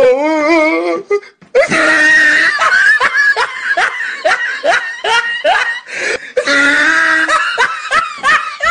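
A person laughing hard: a fast run of short, high-pitched ha-ha syllables, about three a second, after a wavering cry in the first second.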